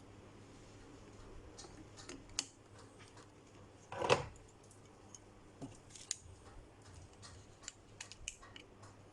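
Scattered small clicks and ticks of tools and parts being handled during a phone repair, with one louder, brief clatter about four seconds in.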